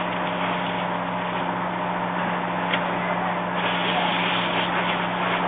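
Fire engine's motor and pump running at a steady drone, with a steady rushing hiss from the hose stream.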